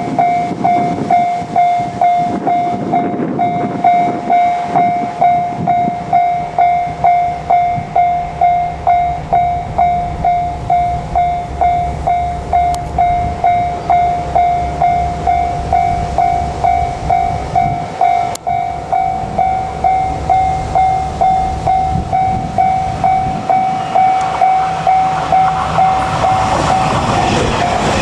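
Japanese level crossing warning bell ringing a steady single-pitched ding about twice a second. Near the end the dings blur into an almost continuous tone as the running noise of a JR Kyushu 817 series electric train grows louder.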